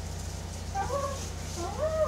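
Two short whimpering whines, one about a second in and one near the end, each rising and then falling in pitch.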